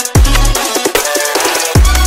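Electronic dance music with heavy bass kick drums, one at the start and another near the end, under sustained synth tones.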